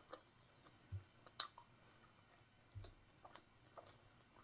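Near silence broken by faint mouth clicks and smacks of someone chewing a soft bread sandwich with the mouth closed, the sharpest click about a second and a half in. Two soft low thumps fall about a second and nearly three seconds in.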